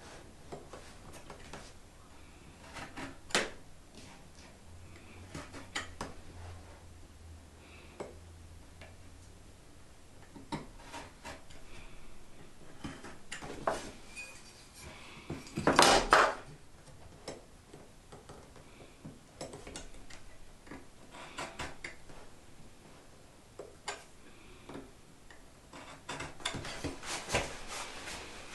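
Scattered light knocks, taps and clatter of wooden pieces and tools being handled and set down during hand woodworking, with a longer, louder clattering burst about sixteen seconds in.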